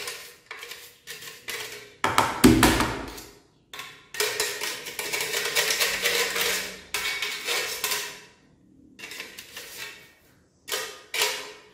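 Avocado seed grated on a stainless steel hand grater: a run of rasping strokes, with one long unbroken stretch of grating in the middle. A heavy knock sounds about two and a half seconds in.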